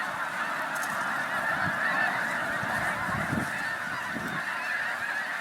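A large flock of snow geese calling close by: many overlapping honks merging into one steady, unbroken chorus.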